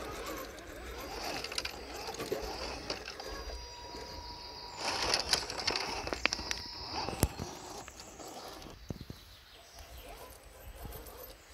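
Small electric motor and gears of a radio-controlled crawler truck whining as it drives, with scattered clicks and knocks; the whine is strongest in the middle.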